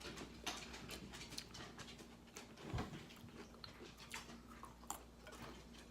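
Faint chewing and small mouth clicks from someone eating, with a slightly louder soft sound near the middle.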